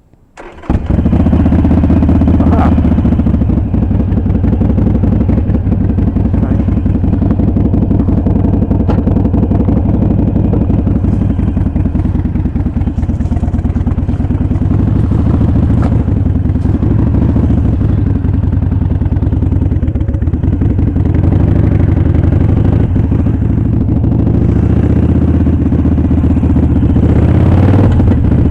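Harley-Davidson Sportster Iron 883's air-cooled V-twin engine starting less than a second in, then running steadily.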